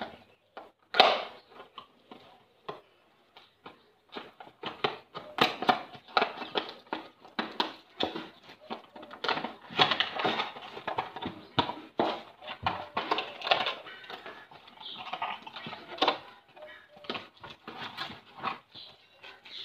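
Cardboard retail box and plastic packaging being opened and handled by hand: irregular crinkling and rustling of plastic with many small clicks, and one sharp crack about a second in.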